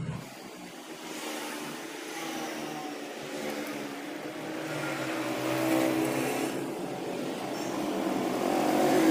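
A motor running with a steady pitched hum that grows louder toward the end.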